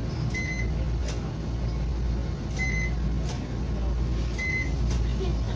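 IC fare-card reader on a Tokyu Setagaya Line 300 series tram beeping as passengers touch their cards: three short beeps about two seconds apart. Under them is the steady low hum of the stopped tram.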